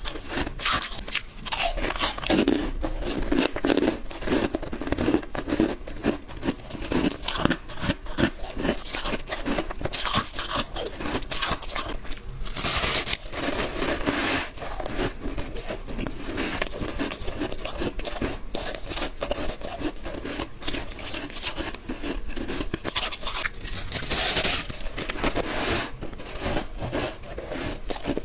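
A person biting and chewing white ice: a dense, continuous run of crunches and cracks, with louder crunching about halfway through and again near the end.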